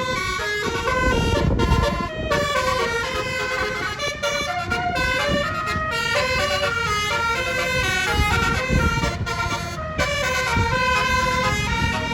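A tour bus's 9-note basuri telolet horn playing a quick melody of short notes that step up and down without a break, over a low rumble.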